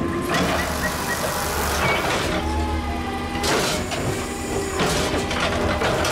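Automated side-loading garbage truck working a pickup: the diesel engine runs hard as the hydraulic arm lifts a wheeled trash cart up to the hopper, with a couple of clanks past the middle.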